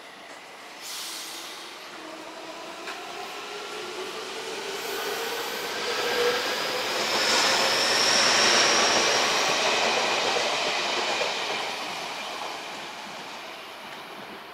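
Odakyu electric commuter train pulling out of the station: its motor whine rises in pitch as it gathers speed, and the wheel and rail noise grows loud as the cars pass, peaking about halfway through, then fades as it leaves.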